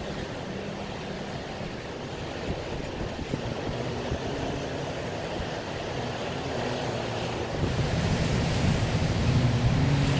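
Heavy storm surf breaking and churning, a continuous rushing wash of white water that grows louder near the end.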